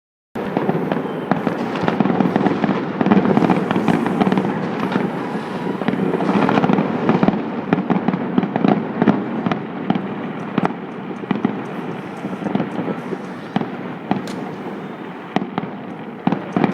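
Many fireworks going off at once: a dense, continuous crackle with frequent sharp bangs.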